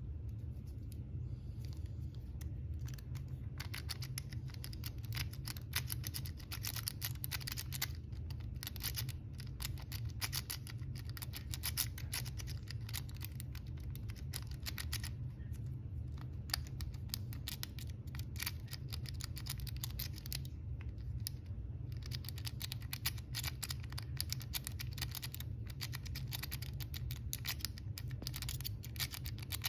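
Lock-pick rake scrubbing in and out of a Kwikset pin-tumbler lock: a continuous run of fast, irregular metallic clicks and scratches as the pins are raked, over a steady low hum.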